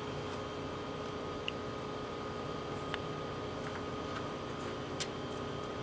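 Steady hum of running lab equipment with a few faint steady tones in it, and about four faint clicks of a small vial and pen being handled while a label is made.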